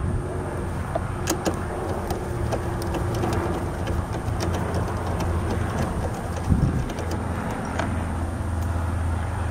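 Steady low engine hum of a running vehicle, with scattered light metallic clicks as the seat-bucket nuts are turned off their studs by hand.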